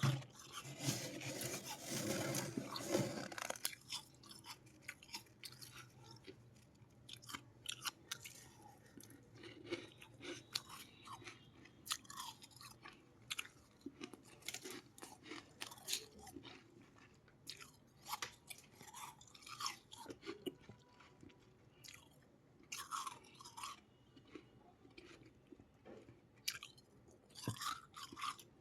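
Someone biting and chewing freezer ice close to the microphone: a long dense crunch in the first few seconds, then short, irregular crunches as it is chewed down.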